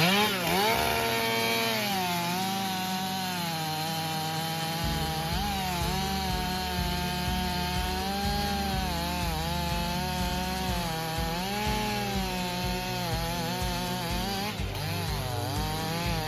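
Petrol chainsaw revving up at the start, then running under load as it cuts into a tree trunk, its engine pitch dipping and recovering several times as the chain bites into the wood.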